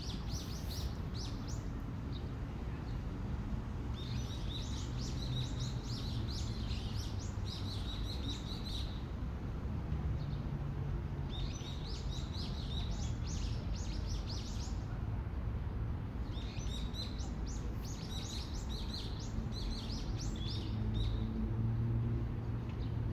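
Birds chirping and twittering in several bursts of quick, high calls, over a steady low background rumble.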